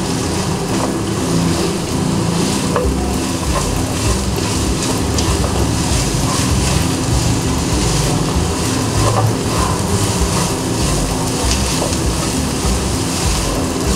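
Sliced onion, cabbage, carrot and capsicum sizzling in a little oil in a non-stick kadhai while a silicone spatula stirs them, with light scrapes and taps of the spatula against the pan over a steady low hum.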